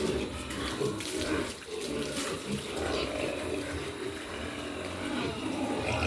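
Water running and splashing as a pig pen and its troughs are washed, with pigs grunting now and then.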